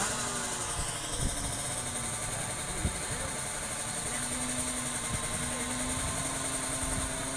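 Tuned two-stroke sport motorcycle engines running: a steady drone, with engine pitch drifting up and down as they rev.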